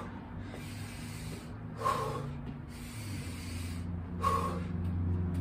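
A man breathing hard and loudly, three heavy exhales about two seconds apart, winded mid-way through a long set of burpees.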